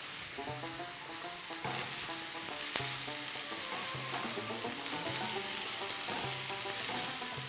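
Sliced green peppers and onion frying in hot oil in a non-stick pan, sizzling steadily while stirred with a wooden spatula, with a few light clicks of the spatula. Soft background music plays underneath.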